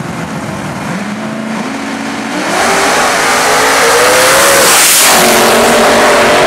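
Two drag cars at the starting line hold their revs, the pitch stepping up. About two and a half seconds in they launch at full throttle, much louder, the engine note climbing steadily as they pull away. The note dips briefly about five seconds in.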